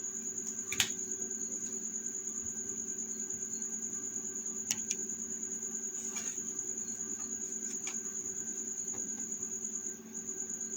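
A steady high-pitched whine over a low steady hum, with a few light clicks, the sharpest about a second in.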